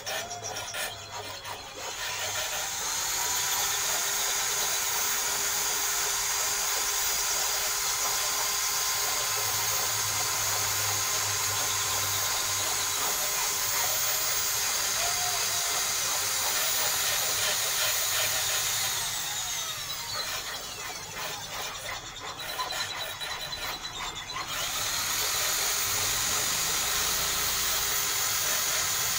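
Corded electric hand drill spinning a length of fishing line to twist it. It spins up about two seconds in and runs at a steady speed, then winds down around two-thirds of the way through. After a few seconds of lower sound with a few clicks, it starts up again near the end.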